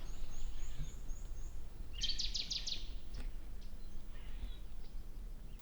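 A small bird chirping: a run of quick, high, rising chirps at first, then a short rapid trill about two seconds in, over a low steady background noise.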